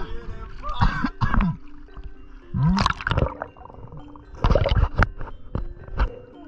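Water splashing and gurgling as a swimmer ducks under, heard through a submerging action camera: a handful of loud, short sloshing, bubbling bursts, muffled once the camera is underwater.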